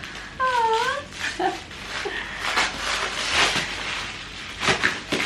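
A package being handled for unboxing, with scattered rustles and knocks; about half a second in, a short, wavering high whine.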